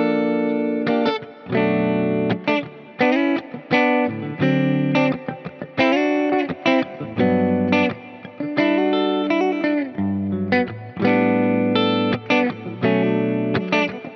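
Epiphone Riviera semi-hollow electric guitar playing a run of picked single notes and chords with a few bent notes, through an amp simulator with some drive, delay and reverb, over a backing track.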